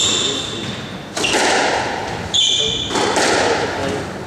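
Squash rally: sharp smacks of the ball off racket and walls, ringing on in the enclosed court, twice about a second apart near the middle. Court shoes squeak high-pitched on the wooden floor at the start and again with the second smack.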